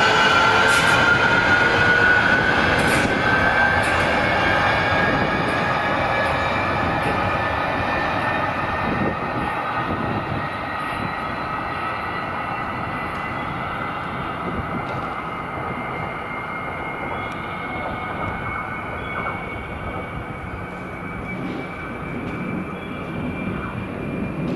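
A JR Shikoku 8600 series electric limited express accelerating away. Its traction-motor whine climbs steadily in pitch while the train's sound fades with distance.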